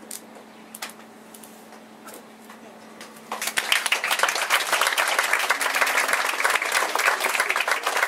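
A quiet pause with a low steady hum, then an audience breaks into applause about three seconds in and keeps clapping.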